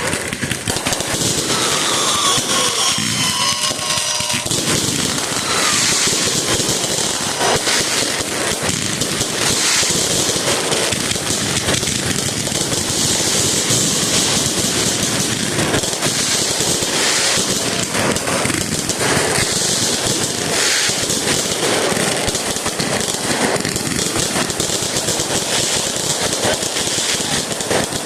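Fireworks and firecrackers crackling and popping in a dense, continuous rapid string of cracks, like machine-gun fire. A few whistling tones glide through about two to four seconds in.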